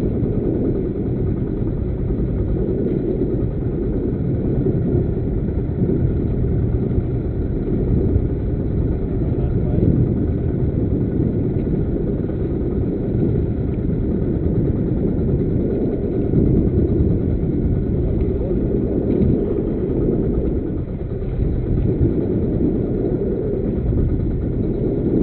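Fishing boat's engine running steadily while underway, the sound sitting mostly low with no change in speed.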